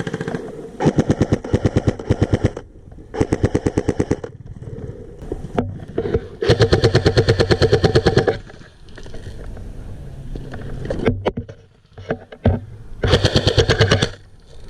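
An airsoft electric gun (AEG) M4 carbine replica with electric recoil fires four bursts on full auto, each a rapid string of shots. The longest burst, about two seconds, comes in the middle.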